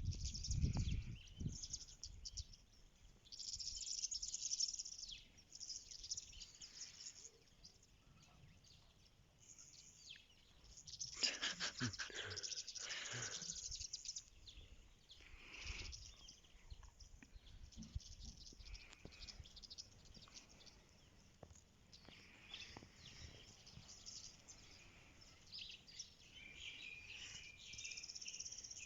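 Faint birds chirping and calling. About eleven seconds in there is a louder, rapidly pulsing sound lasting about three seconds.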